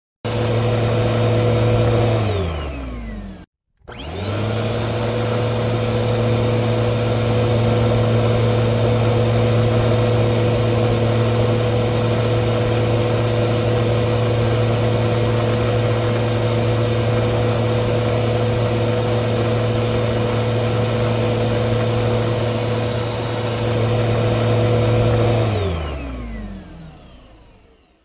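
Vacuum cleaner motor running, then winding down with falling pitch to a brief silence. It starts up again, rising to a steady high whine over a low hum, runs for about twenty seconds, and winds down with falling pitch to silence near the end.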